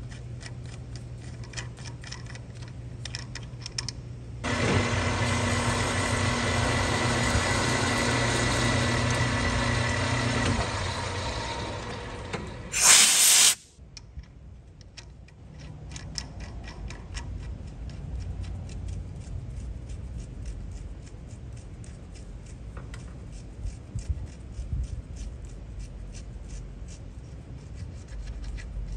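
Steel castle nut being turned by hand on a freshly cut 5/8-11 bolt thread, giving faint, evenly spaced clicks over a low shop hum; the thread is still a little tight. About four seconds in, a machine motor starts and runs loudly and steadily for some six seconds, then winds down. It is followed by a sharp, loud hiss of under a second.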